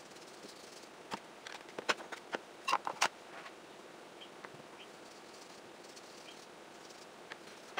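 Light clicks and taps of small paint bottles fitted with blending sponges, handled on the table and dabbed onto paper and an ink pad. A cluster of sharp clicks comes between about one and three seconds in, then it goes quieter.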